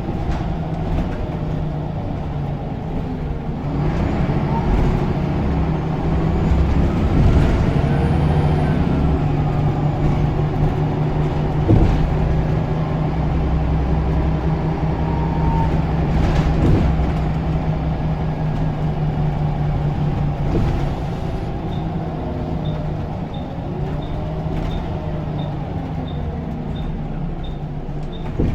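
Scania L94UB bus's diesel engine pulling with its turbocharger whistling, the pitch rising and falling through semi-automatic gear changes, with a few knocks along the way. Near the end a faint high beep repeats about twice a second.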